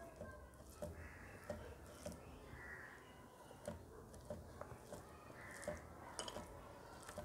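Faint soft squishing and light taps of fingers mixing rice with cooked taro-leaf greens on a steel plate. Two faint short calls sound in the background, a little under halfway through and again about three-quarters through.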